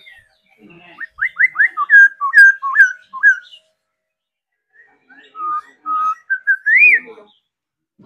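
Caged laughingthrush singing loud, clear whistles in two phrases with a short pause between them. The first is a quick run of about ten notes; the second is slower and ends on a rising-and-falling upslurred note.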